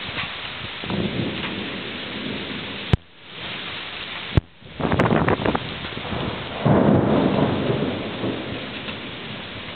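Steady rain falling under a passing thunderstorm, with thunder rumbling. About five seconds in the thunder turns to loud crackling peals, and the loudest rumble comes near seven seconds, then fades. Two sharp clicks, about three and four and a half seconds in, are each followed by a sudden brief drop in the sound.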